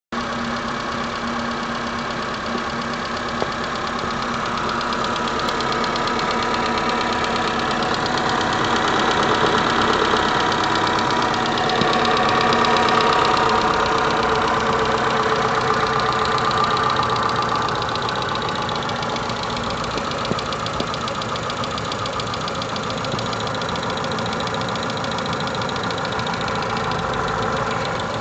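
Renault Mégane II's K4M 1.6-litre 16-valve petrol engine running steadily with a fast, even knocking, a little louder through the middle. The cause of the knock is unknown to the owner.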